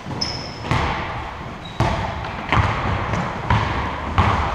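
A basketball bouncing on a gym floor, five bounces roughly a second apart, with a short high squeak near the start.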